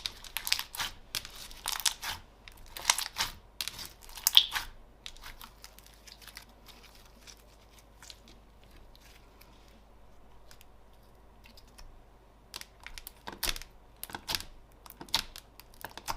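Slime squished and worked by hand, giving crackly, crinkly pops in bursts for the first four seconds or so, then a quieter stretch of faint crackles, and a run of sharp pops and clicks near the end.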